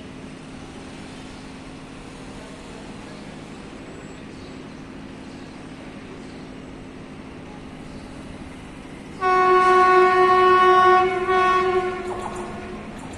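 Locomotive horn of an approaching train sounding one long steady blast of about two and a half seconds, starting abruptly about nine seconds in, then a short swell that tails off. Before it there is only faint steady background noise.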